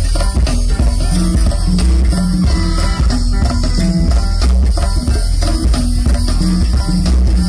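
Live go-go band playing: a repeating bass line over a steady drum-kit beat, with guitar.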